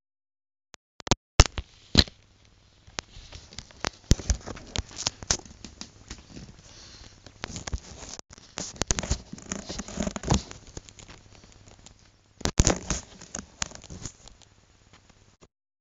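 Handling noise from the recording device being moved about over a stack of paper: irregular clicks, knocks and scraping rustles, with loud clusters of knocks about a second and a half in, around ten seconds in and near the end, cutting off suddenly.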